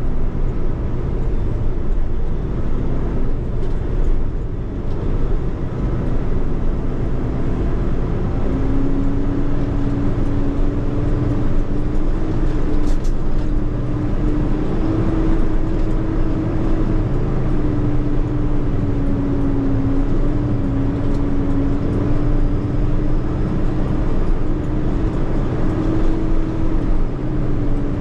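Semi truck's diesel engine running as the truck is driven slowly, heard from inside the cab: a steady low drone, with a humming tone that comes in about eight seconds in and wavers slightly.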